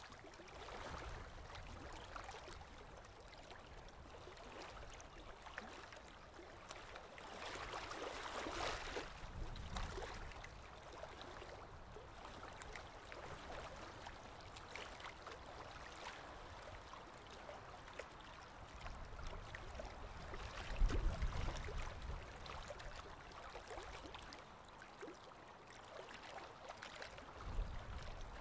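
Faint running water trickling and gurgling, as at a canal lock, with two brief low rumbles, one about two-thirds of the way through and one near the end.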